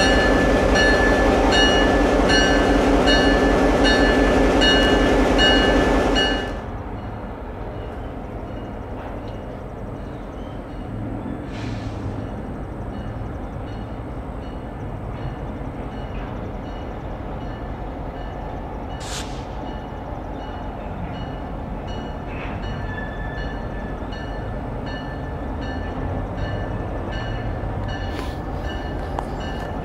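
EMD GP38-2 diesel locomotive passing close under power with its bell ringing about twice a second. About six seconds in the sound drops abruptly to the same train heard from afar: a low engine rumble with the bell faintly ringing as it approaches.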